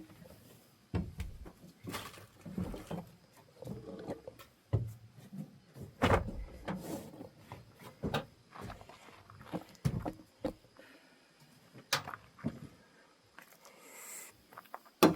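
Irregular knocks, clunks and rustling from objects being handled close to the microphone, with a sharp click at the very end.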